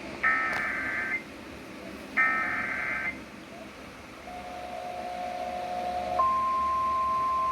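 Emergency Alert System header: the last two of three identical bursts of warbling digital data tones, each about a second long, then a quieter steady tone that swells, and from about six seconds in the steady, louder attention-signal tone that precedes the spoken warning.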